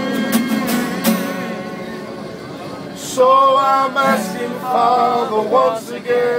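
Guitar strumming, then from about three seconds in a man singing loudly over it at close range.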